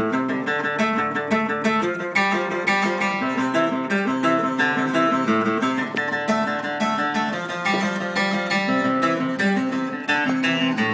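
Acoustic guitar strummed and picked through a run of changing chords, with no singing.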